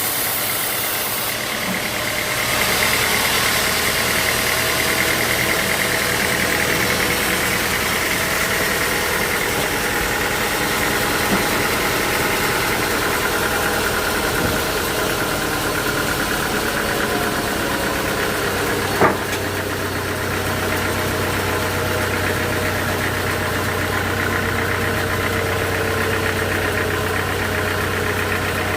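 Sawmill machinery's engine running steadily, its tones slowly drifting in pitch, with a single sharp knock about two-thirds of the way through.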